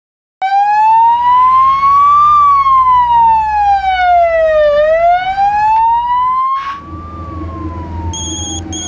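Ambulance siren wailing, one tone sliding slowly up and down over a few seconds. It comes in suddenly and is loud at first, then is heard more muffled from inside the cab over the low hum of the vehicle. Near the end a mobile phone starts ringing with short repeated electronic beeps.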